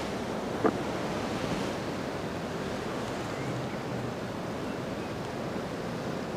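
Steady rush of wind over the microphone and the wind-rippled pond, with a single brief tick about two-thirds of a second in.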